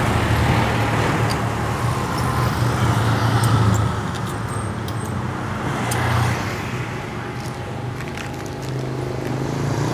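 Steady low rumble of road traffic, swelling as vehicles pass about a third of the way in and again past the middle, with a few faint clicks.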